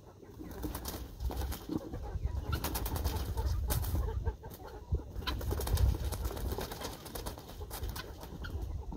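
Chickens in a wire coop giving low cooing calls and flapping their wings, with many small knocks and rattles and a low rumble underneath.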